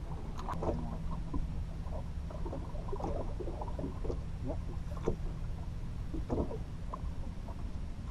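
Small fishing boat on open water: short, irregular slaps of water against the hull over a steady low rumble, with a few sharp knocks.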